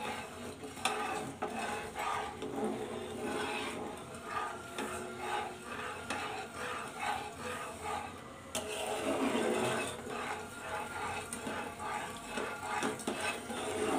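Flat spatula scraping and stirring thick, reduced milk around a nonstick frying pan in repeated strokes, as the milk cooks down to kheer on a low flame.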